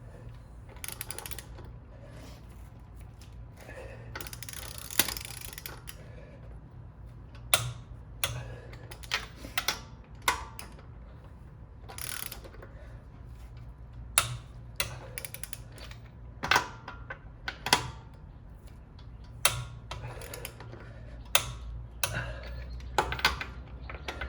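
Torque wrench ratcheting and clicking as a wheel's lug nuts are tightened to torque: a scatter of sharp metallic clicks, some in quick runs, over a steady low hum.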